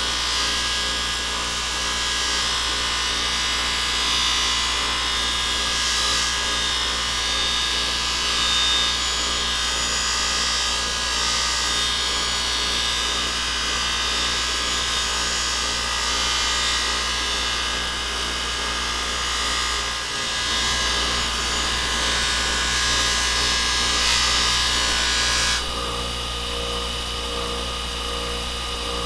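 Bench grinder running, with a steel bar pressed against its abrasive wheel: a steady motor hum under a loud, high grinding hiss. Near the end the bar comes off the wheel, the hiss stops suddenly, and only the motor hum goes on.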